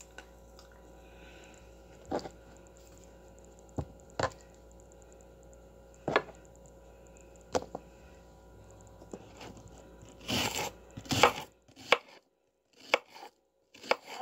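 Kitchen knife cutting onion and green bell pepper on a cutting board: single blade taps on the board every second or two, then a quicker, louder run of cuts about ten seconds in.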